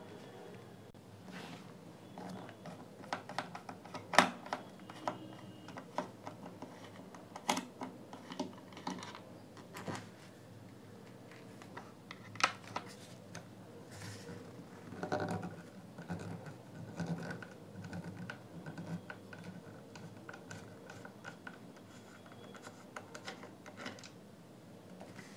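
A screwdriver turning screws out of the plastic housing of a JBL Charge Bluetooth speaker: scattered small clicks and scratching of metal tool on plastic, with a few sharper knocks, the loudest about four seconds in and another about twelve seconds in.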